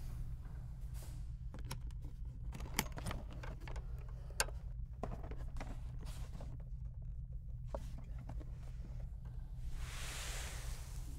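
Clicks and rattles of a red plastic toolbox being opened and its contents handled, over a steady low hum; a short hiss swells about ten seconds in.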